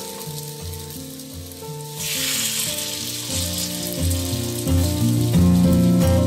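Serabi batter sizzling in the cups of a hot multi-cup metal pan, the hiss growing louder about two seconds in. Background music with a melody plays over it.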